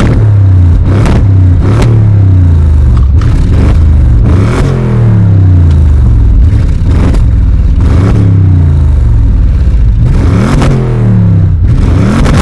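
Audi RS6 engine, with its centre resonator replaced by straight pipes, repeatedly revved up to the rev limiter and let fall back, roughly once a second. Each rev has sharp cracks from the exhaust.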